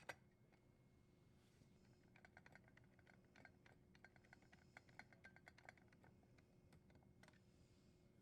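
Faint, quick clicks of a screw being driven in to secure a dishwasher's electrical junction box cover, in a run about two to six seconds in.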